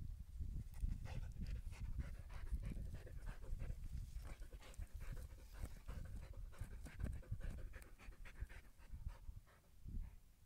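Siberian husky digging in loose soil, its paws scraping the earth in quick irregular strokes while it pants and snuffles with its nose in the hole.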